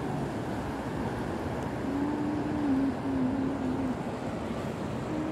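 Ocean surf washing on the beach, with wind rumbling on the microphone. A low, drawn-out hum sounds for about two seconds in the middle.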